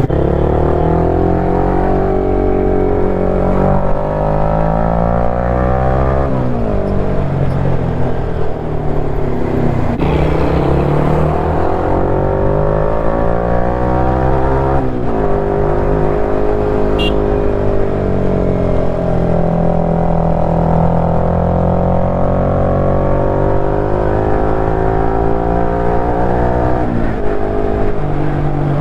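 KTM 390 Duke's single-cylinder engine pulling while the bike is ridden. The engine note climbs and falls as the rider goes through the gears, with quick shifts about a quarter of the way in, around halfway and near the end.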